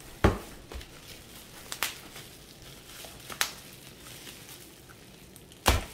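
Bubble wrap and plastic packaging rustling and crinkling under the hands, broken by a few sharp knocks as the wrapped printer is handled on a wooden desk. The loudest knocks come about a quarter-second in and near the end.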